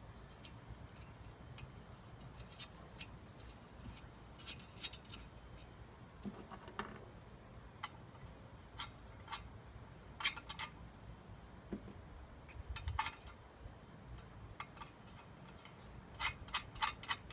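Scattered light clicks and taps of metal parts being handled, as bolts are fitted to a brake drum, with a quick run of clicks near the end.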